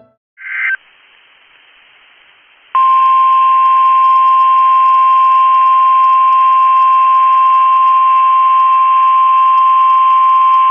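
NOAA Weather Radio alert: a brief burst of digital header tones about half a second in, a couple of seconds of radio hiss, then the 1050 Hz warning alarm tone, a single loud steady tone that starts near three seconds in and holds. The tone signals that a warning is about to be read.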